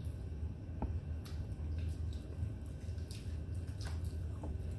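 Eating sounds from crispy fried chicken being chewed and pulled apart by hand: scattered wet smacks and small crackles, irregular, over a steady low hum.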